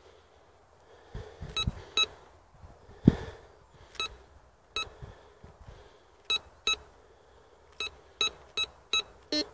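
Bounty Hunter Land Star metal detector giving a dozen or so short beeps, run at maximum sensitivity with no discrimination, coming more closely together near the end as the coil sweeps over the card marking a coin buried 31 cm down. A few soft knocks sound between the beeps, the loudest about three seconds in.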